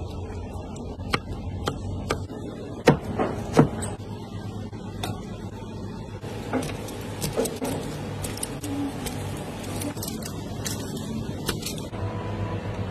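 Food-preparation clatter: scattered clicks and knocks of a knife and skewers on a cutting board, with two louder knocks about three seconds in, over a steady low hum.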